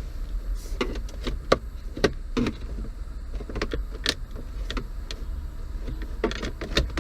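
Plastic dashboard trim around a car radio being pried loose by hand: irregular clicks and knocks of plastic and its clips.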